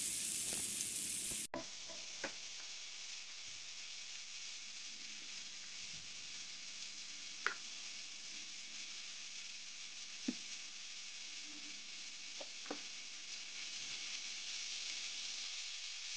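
Shrimp, bell peppers and onions sizzling steadily in a hot nonstick frying pan, with a few separate light clicks of the spatula against the pan. The sizzle is louder for about the first second and a half, then drops suddenly to a quieter, even hiss.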